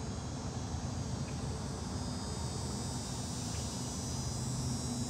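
A steady chorus of insects: thin, high, unbroken trilling, over a low, even hum.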